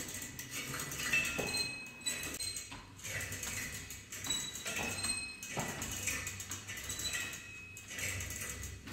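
Gym exercise machine in use: a rhythmic metallic clink, each with a short high squeak, about once every second and a half with every stroke.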